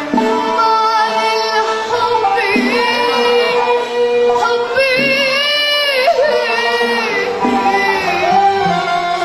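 A young girl singing an Arabic song over live band accompaniment, holding long notes with wavering ornaments.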